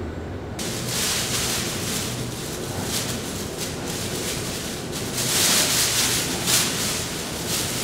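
Thin plastic bag rustling and crinkling as it is shaken open and fitted into a fabric laundry basket, loudest a little past the middle.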